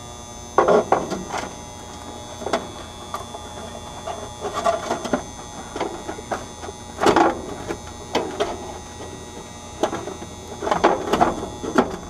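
Pliers and spade wire connectors clicking and scraping against the terminals of an air-conditioner capacitor as loose connections are tightened. The clicks come in irregular clusters, loudest about half a second in, around seven seconds and near eleven seconds, over a steady electrical hum.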